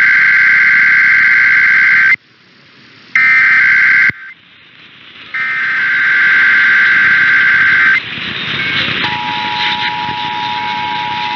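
Emergency Alert System SAME header: three bursts of raspy digital data tones. About nine seconds in, the steady two-tone EAS attention signal (853 and 960 Hz together) begins, marking the start of an emergency alert test.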